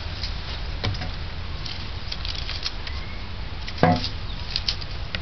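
Dry sticks being handled and fed into a charcoal kiln's firebox: light scattered clicks and clatter of wood, with one louder thump about four seconds in.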